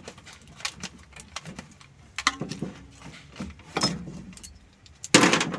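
Scattered metallic clinks and rattles from a homemade chain-type oil filter wrench on a loosened oil filter as it is worked free by hand. A louder noise comes near the end.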